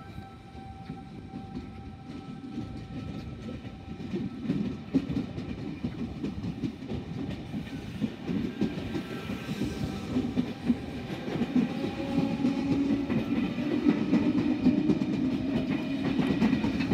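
Eight-car V-set double-deck electric train pulling out along the platform, its wheels clicking steadily over the rails. The rumble builds in loudness from about four seconds in as it picks up speed, with a few faint steady motor tones above it.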